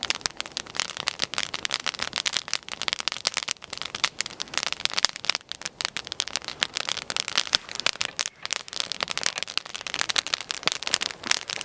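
Wood campfire, laid in layers of sticks as an upside-down fire, crackling steadily with dense rapid snaps as its lower layers burn.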